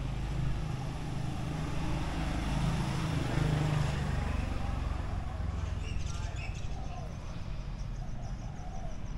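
Street ambience with a motor vehicle passing: a low engine rumble and tyre hiss that swell to a peak about three seconds in and then fade. Short high chirps come about six seconds in.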